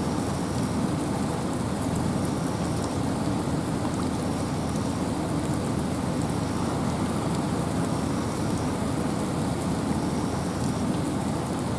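Steady rain and wind in a forest: a dense, even rushing with scattered raindrop ticks through it.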